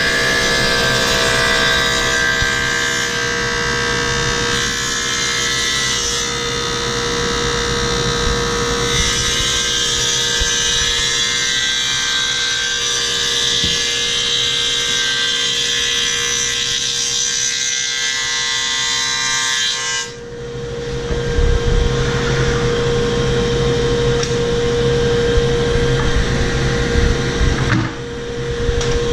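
Table saw running with a steady hum as a plywood panel is pushed through the blade on a sliding table, the cut adding a loud rushing noise. About two thirds through the sound changes suddenly to a deeper rumble with less of the high rush.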